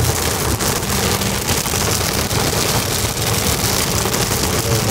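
Heavy rain pelting the roof and windshield of a moving car, heard from inside the cabin as a dense, steady patter of countless drops over the car's road noise on the wet road.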